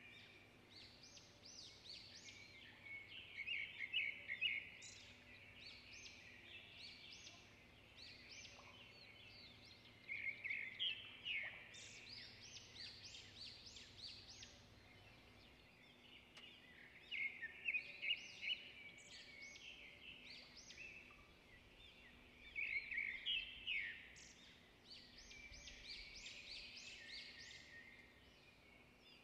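Birds chirping in quick high-pitched bursts, one burst every few seconds.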